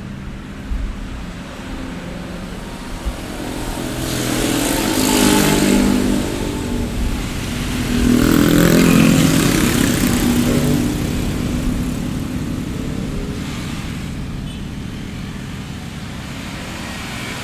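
Street traffic ambience: a steady low rumble of traffic, with two motor vehicles passing close by, about four and eight seconds in. Each swells with engine tone and tyre hiss and then fades.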